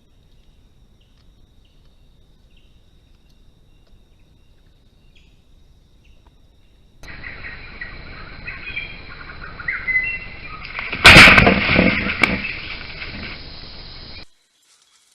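Faint bird chirps over a hiss, then, after an abrupt change about seven seconds in, louder bird chirps. About eleven seconds in comes a loud sudden burst close to the microphone, the loudest sound here, and the sound cuts off abruptly near the end.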